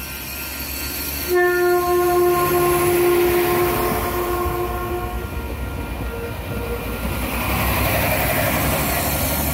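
NCTD Sprinter diesel multiple unit sounding its horn in one steady blast of about four seconds, starting about a second in, followed by the rumble and rush of the train passing close by.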